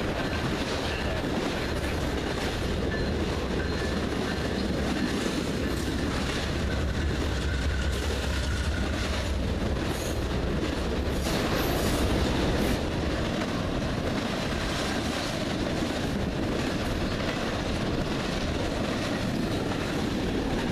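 Freight trains rolling past close by: a Norfolk Southern diesel locomotive's deep engine rumble, which eases after about thirteen seconds, over the steady rolling of empty coal hopper cars and an intermodal train, with wheels clicking over rail joints and a faint high wheel squeal.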